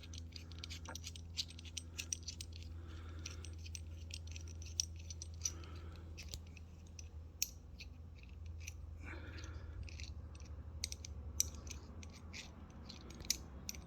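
Scattered light clicks and scrapes of small clutch cable adjuster parts being handled and fitted by hand, over a steady low hum.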